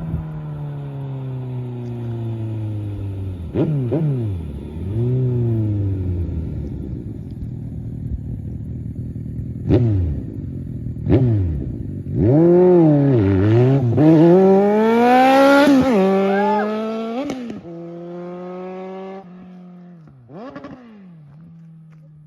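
Suzuki Bandit 1250's inline-four engine, its pitch falling off, then a few sharp throttle blips. From about twelve seconds in it climbs hard several times in quick succession with a drop between each, the loudest part. It then eases off and settles to a steadier, quieter note that fades near the end.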